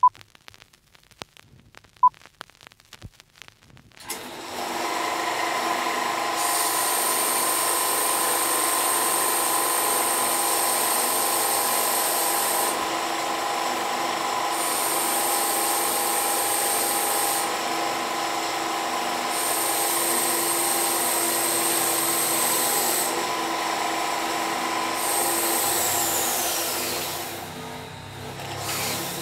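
Bench belt sander running, with fabric pressed against its moving abrasive belt. The sound starts about four seconds in; a high whine cuts in and out several times, and near the end the pitch falls and the sound dies away as the belt runs down.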